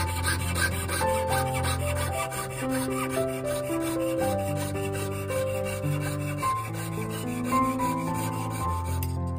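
A jeweler's piercing saw cutting openwork in a thin brass plate, its fine blade going up and down in rapid, even strokes. Slow background music with held notes plays throughout.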